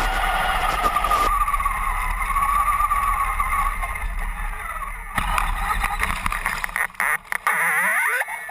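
Traxxas Summit electric RC truck's motor and gearbox whining as it drives, the pitch rising and falling with the throttle over low rumble. Near the end the whine sweeps steeply down as it slows.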